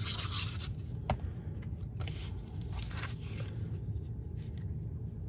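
Paper and cardstock handled on a tabletop: soft rubbing and scraping as layers are slid and pressed into place, with a single sharp tap about a second in.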